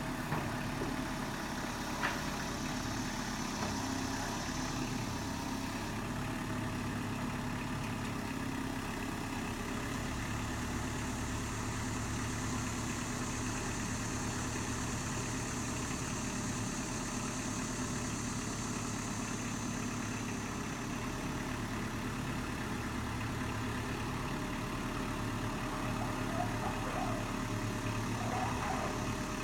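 Kubota M59 tractor-loader-backhoe's diesel engine running steadily, with a single short knock about two seconds in.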